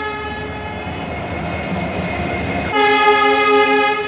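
Locomotive horn sounding one blast of a little over a second, about two-thirds of the way in, over the steady rumble of an Indian Railways train rolling slowly past along the platform.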